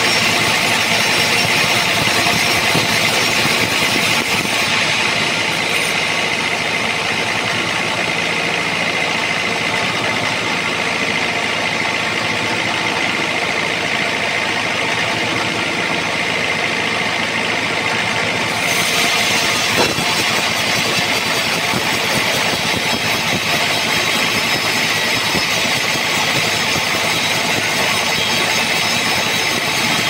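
Band sawmill cutting lengthwise through an old trembesi (rain tree) log: a steady machine drone with a high, even whine from the blade running through the wood. One short knock about twenty seconds in.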